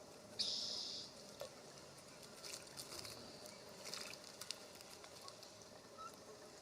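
Bird splashing in a bird bath: a short spray of water about half a second in, then faint scattered ticks and patters.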